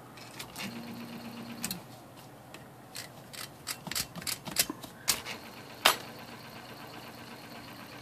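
IBM Selectric II typewriter with its motor running, a steady low hum from the drive, while the mechanism gives off about ten scattered sharp clicks and ticks as it is worked by hand. The running machine is being checked for noise from the newly installed motor-train hub after a couple of drops of oil.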